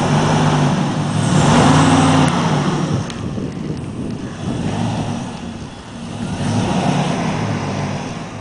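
Chevy Tahoe's engine running and revving, swelling louder about a second in and again near the end.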